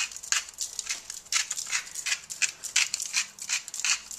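Garlic salt shaken from a shaker over squash pieces: a quick, irregular run of short, hissy rattling shakes, several a second.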